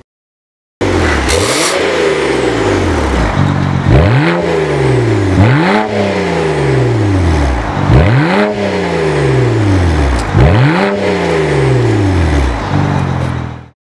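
BMW engine revved through a REBS Pico aftermarket variable exhaust: five blips of the throttle, each rising sharply in pitch and falling back slowly.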